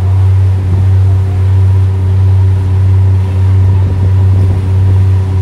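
A sightseeing pirate ship's engine droning steadily while under way: a loud, constant low hum with a few steady higher tones above it.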